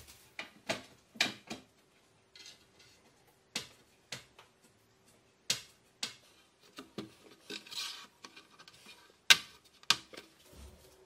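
Irregular sharp knocks and light metallic clatter from an aluminium Gola handle rail being handled and fitted against kitchen cabinet carcasses, with a short scraping rub a little past the middle. The loudest knock comes near the end.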